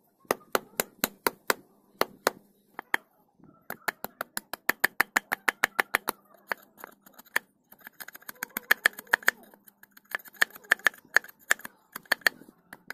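Knife blade chopping and shaving a green wooden stick against a log: quick, sharp cutting strokes, several a second, broken by two short pauses.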